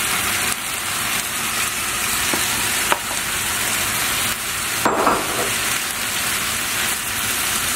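Pork mince and kimchi sizzling steadily in a frying pan as cooked rice is tipped in and pushed around with a wooden spatula. A few light spatula knocks are heard, and there is a short louder scrape about five seconds in.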